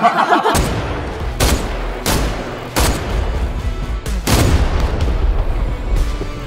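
Brief laughter at the very start, then a dramatic title sting: music over a heavy bass with about four sharp gunshot sound effects spread over a few seconds.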